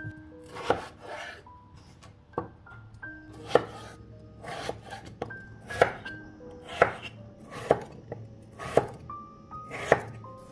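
A santoku-style kitchen knife chopping raw potatoes and striking a wooden cutting board, one sharp chop about every second. Light background music with bell-like notes plays under the chopping.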